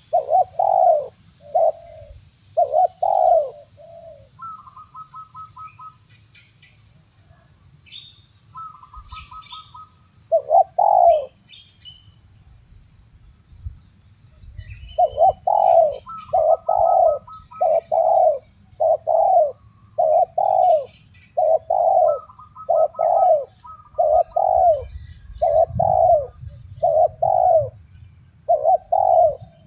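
Spotted doves cooing, repeated coos in runs that pause for several seconds, then go on almost without a break from about halfway through. Short rapid stuttering notes come twice in the quiet stretch, over a steady high-pitched whine.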